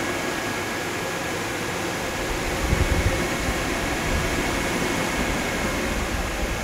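A pair of electric radiator fans running steadily: an even rush of moving air with a faint steady whine.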